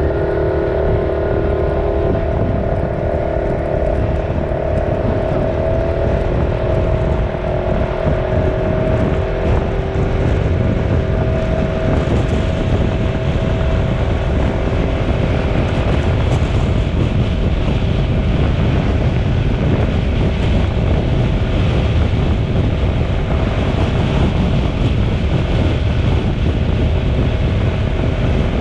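A vehicle on the move with steady road rumble and wind noise on the microphone, and a faint whine that fades away over the first half.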